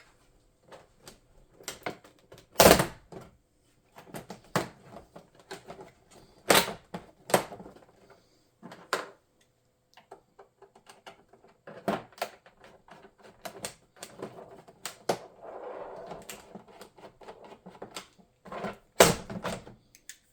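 Plastic retaining clips on an all-in-one computer's back cover snapping loose as the cover is pried off: irregular clicking and cracking, with a few louder snaps, one of the loudest near the end.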